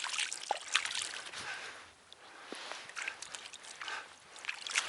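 Shallow river water splashing and sloshing at the edge in small, irregular bursts. It is busiest in the first couple of seconds, then quieter with only scattered splashes.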